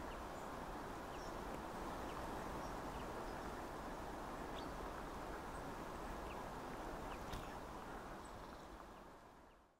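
Steady outdoor ambient noise, a rushing wash, with faint, scattered short bird chirps; it fades out near the end.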